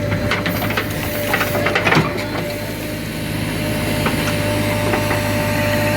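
JCB 3DX backhoe loader's diesel engine running steadily, with a thin steady whine over the low hum. Short metallic knocks and clatters come in the first two seconds.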